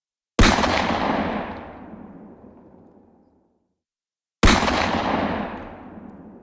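Two single gunshots about four seconds apart, each a sharp crack followed by a long rolling echo that dies away over about three seconds.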